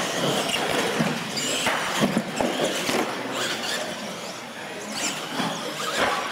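Solid-axle R/C monster trucks racing on a concrete floor: electric motors whining and tyres squealing, with a few sharp knocks as they hit ramps and obstacles.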